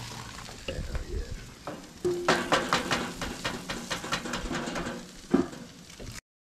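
Food sizzling on a Coleman propane camp stove, with a cooking utensil scraping and clicking quickly against the cookware from about two seconds in. The sound cuts off suddenly near the end.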